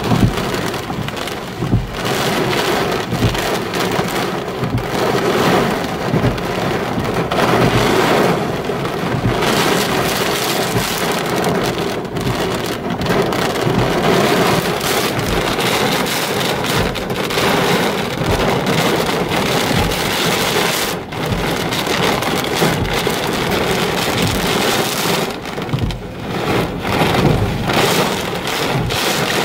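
Heavy wind-driven rain from a severe thunderstorm squall line pelting a car, heard from inside as a loud, steady rush with many sharp drop impacts on the glass.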